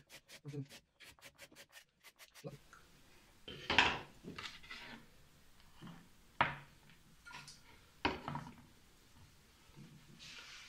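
Carrot being grated on a Korean carrot grater: a fast, even run of rasping strokes for about two and a half seconds. After that come a few separate scrapes and knocks as the shredded carrot is gathered on a wooden cutting board.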